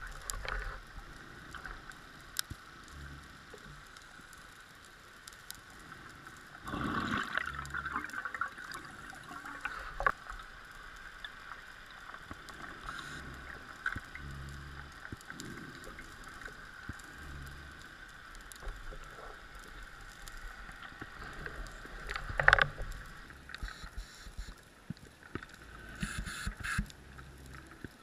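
Underwater ambience heard through a dive camera's housing: muffled water noise with a stuttering low rumble and scattered clicks, and louder bursts of water noise about 7 seconds and 22 seconds in.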